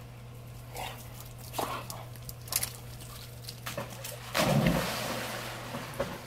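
A Labrador retriever leaps into a swimming pool: a sudden heavy splash about four seconds in, with water sloshing that fades over a second or so. Before it, a few short dog sounds.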